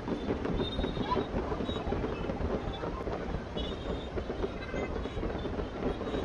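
Fireworks going off continuously in a dense rumble of many overlapping bangs and crackles, with no single blast standing out.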